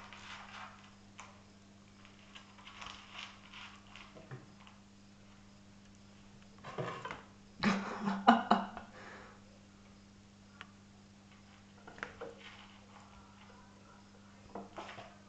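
Light knocks and clatter as kittens scramble among wooden chair legs and rails on a tiled floor. The loudest is a cluster of sharp knocks about seven to nine seconds in, with a few smaller taps later, over a steady low hum.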